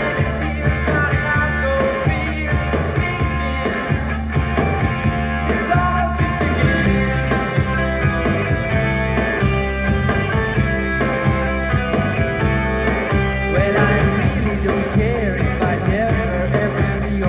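Rock and roll song with singing, played from a Pioneer SX-580 stereo receiver through JVC bookshelf speakers.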